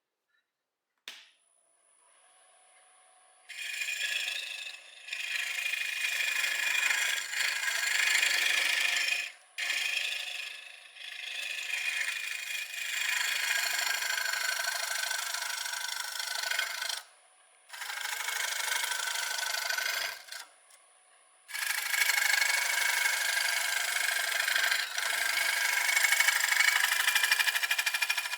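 A turning tool cuts green, wet maple on a spinning lathe, hollowing the inside of a bowl blank with a scraping, hissing sound. The cut comes in several long passes with short breaks between them.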